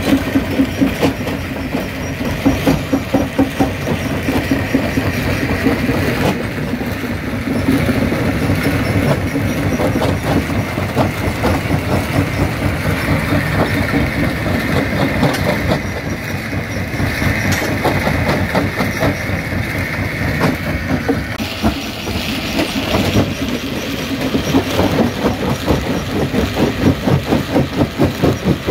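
Jaw crusher running and crushing stone, pulsing in a fast, even rhythm over a steady mechanical hum.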